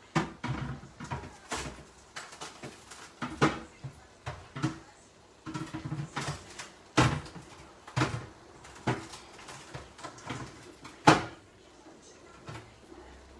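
Irregular knocks and clatter of a baking tin being handled to get a freshly baked loaf out of it; the loudest knock comes near the end.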